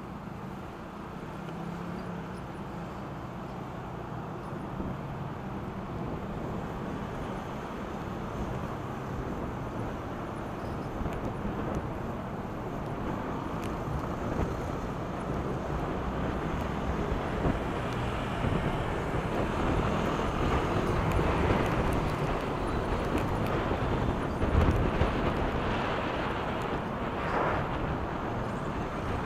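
City traffic of cars and motorcycles, heard with a steady rush of wind and road noise from a moving e-bike; it grows louder as the bike picks up speed.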